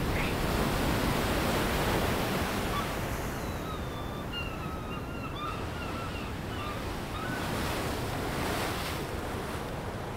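Ocean surf washing against coastal rocks, a steady rushing of waves that swells and eases slightly, with a few faint high chirping calls in the middle.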